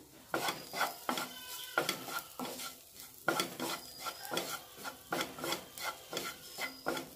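Wooden spatula stirring and scraping chopped onions and ground spices around a nonstick frying pan in quick repeated strokes, two or three a second, with the mixture sizzling. The spices are being toasted in the pan until their raw smell goes.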